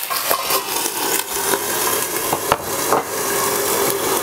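Eggplant slices sizzling loudly in hot olive oil in a sauté pan just after a few tablespoons of water went in: a steady steaming hiss with scattered pops and crackles.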